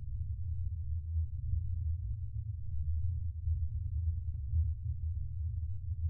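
Spaceship ambience sound effect: a steady, deep hum with a slight waver and nothing higher-pitched above it.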